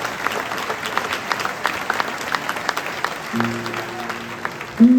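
Concert audience clapping, the separate claps clearly audible. About three seconds in, a steady low note from the stage comes in under the claps, and just before the end a much louder held note starts the song.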